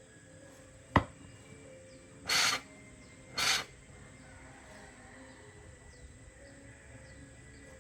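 A sharp click, then two short bursts of hiss about a second apart, with faint bird chirps in the background.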